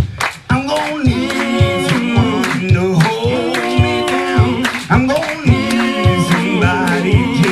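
A live acoustic band playing: several voices singing in harmony over an acoustic guitar and an upright double bass, with sharp clicks marking a steady beat.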